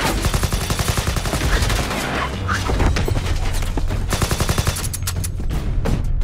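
Automatic gunfire from a film soundtrack: a long, dense, rapid volley of shots that breaks up near the end into a few separate loud shots or hits.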